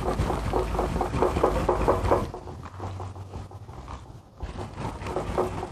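Wire whisk beating a thick cornmeal-and-cheese cake batter in a bowl, in quick even strokes of about five a second. The strokes ease off in the middle and pick up again near the end.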